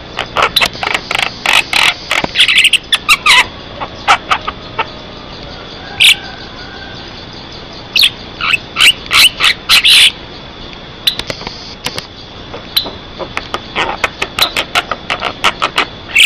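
Javan myna (jalak kebo) singing in full, vigorous voice: quick runs of short, sharp chattering and whistled notes in bursts, with brief pauses between them.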